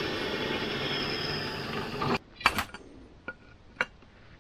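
Bench drill press boring a hole through a metal plate: a steady cutting noise that stops abruptly about two seconds in. A few sharp metallic clicks follow as the drilled plate is handled.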